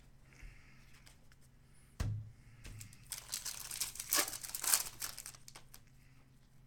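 Foil trading-card pack wrapper crinkling as it is torn open, in a dense crackly burst lasting a couple of seconds, after a single soft knock.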